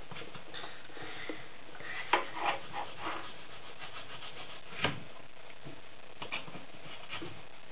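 Knives cutting banana and strawberries on wooden chopping boards: irregular light knocks and scrapes of the blades on the wood, the sharpest about two seconds in and just before five seconds.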